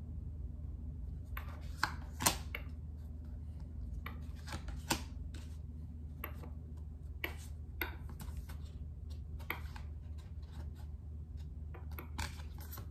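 Tarot cards being handled and shuffled, giving irregular crisp clicks and snaps of card stock over a steady low hum.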